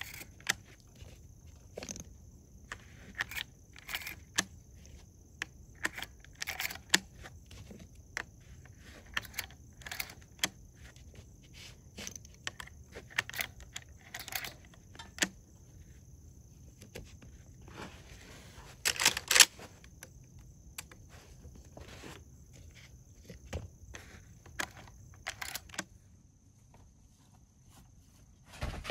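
Cartridges being thumbed one by one through the loading gate into a lever-action rifle's tube magazine: irregular metallic clicks and small knocks, with a louder cluster of rattling clicks about two-thirds of the way through, over a steady high hum.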